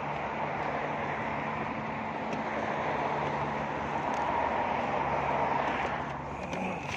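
Steady road traffic noise with a low, even engine hum underneath.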